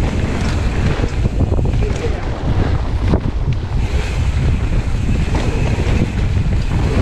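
Wind rushing over the microphone of a camera riding on a mountain bike moving fast down a dirt trail, with the tyres rumbling over the dirt and a few short clatters from the bike.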